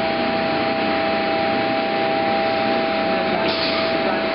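Vinyl record pressing machinery running: a steady, dense hiss with a constant two-note hum underneath.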